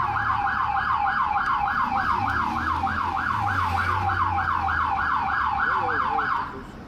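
American police car siren in fast yelp mode, sweeping rapidly up and down at about three to four cycles a second, then cutting off just before the end.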